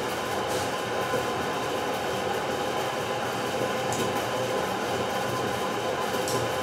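Steady mechanical whirring and hum of a motorised kinetic light sculpture's rotating cylinder. A couple of light clicks come about four and six seconds in as controls on its base are worked.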